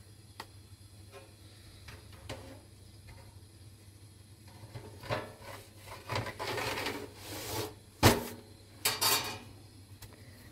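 A long thin wooden rolling pin and sheets of flatbread dough being handled: soft rubbing and scraping that grows louder about halfway through, with one sharp wooden knock about eight seconds in.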